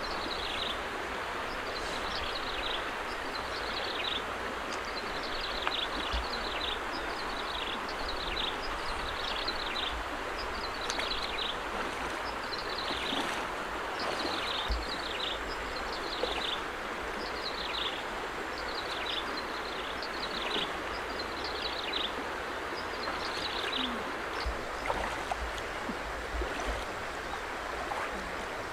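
Flowing stream running steadily, with an animal's high, short falling chirp repeated about once a second that stops a few seconds before the end.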